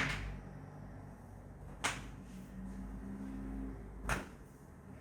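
Three short, sharp cracks about two seconds apart: joints of a patient's foot popping under an osteopath's manipulation.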